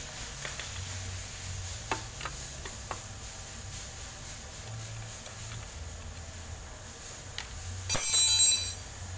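Workshop tool noises while an engine is being taken apart: a few light clicks and knocks, then a loud, shrill scrape or squeal lasting under a second near the end.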